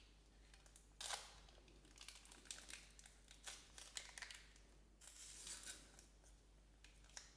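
Faint crinkling and rustling of a plastic candy wrapper being opened, in short irregular bursts.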